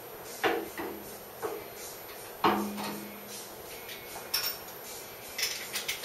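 Metal parts and tools knocking and clinking on a milling machine's table and saddle as an aluminium Y-axis motor mount and its bolts are fitted: several separate knocks, the loudest about two and a half seconds in with a short ringing tone after it.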